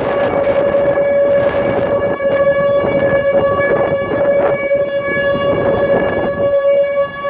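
Outdoor tornado warning siren sounding one steady, unwavering tone, heard from a moving car with a rough road-and-wind noise underneath.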